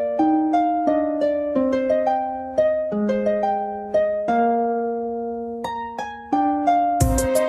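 Instrumental music: a slow melody of plucked, ringing notes with chords underneath, harp-like. Near the end a fuller, louder arrangement comes in.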